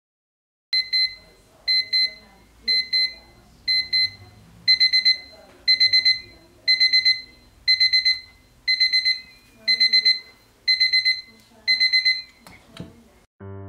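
Travel alarm clock beeping, high beeps in groups about once a second, in pairs at first and then in fours, before it stops and a click follows near the end. Piano music begins just after.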